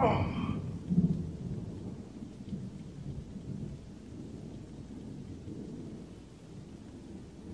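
Thunder rumbling: a loud crack right at the start with a short falling high sound, a second swell about a second in, then a low rumble that slowly dies down.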